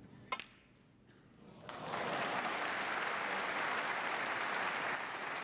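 A single sharp click of snooker balls, then the arena crowd applauding for about three and a half seconds until the sound stops abruptly.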